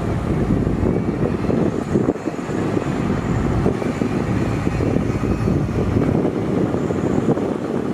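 Heavy diesel construction machinery running steadily, a rough low rumble.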